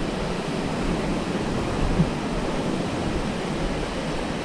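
Sea surf washing over a coral-rock shore: a steady rush of breaking waves and seawater.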